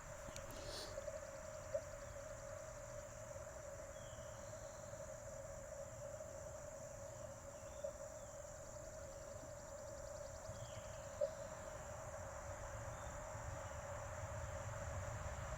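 Steady mid-pitched tone from an Icom IC-705 ham radio transceiver, held without a break, with a few faint clicks. Insects trill rapidly and faintly in the background.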